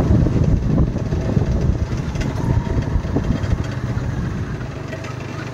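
A two-wheeler's small engine running steadily as it is ridden slowly, easing off a little toward the end.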